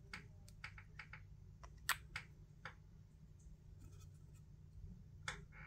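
Faint clicks and light taps of hands handling a plastic nail-polish swatch wheel, with one sharper click about two seconds in.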